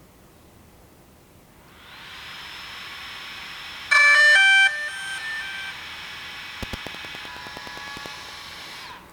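DJI Mavic Air drone powering up. A steady whir fades in about two seconds in. About four seconds in comes a loud run of stepped start-up beeps, and later a quick series of clicks. The whir stops near the end.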